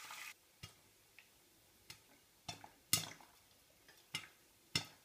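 Popcorn kernels starting to pop in hot oil under a glass pot lid: single sharp pops at uneven intervals, about eight of them, the loudest about three seconds in.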